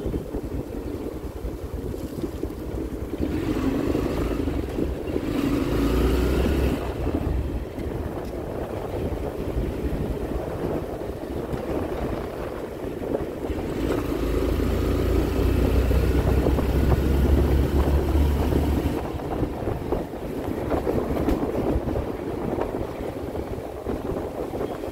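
Motorcycle engine running as the bike rides along and picks up speed, with wind buffeting the microphone. The buffeting swells twice, a few seconds in and again past the middle.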